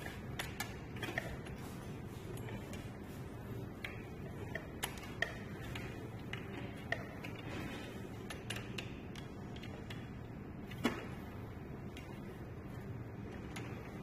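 Sparse light clicks and taps, typical of metal tools and small parts being handled during a repair, over a steady low hum. One sharper knock comes about eleven seconds in.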